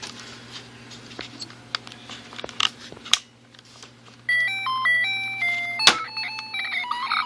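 A few light clicks and taps, then about four seconds in a Casio MA-10 alarm clock's electronic beeping melody starts suddenly, stepping from note to note, with one sharp click partway through. The old clock is going haywire, acting as if circuit-bent.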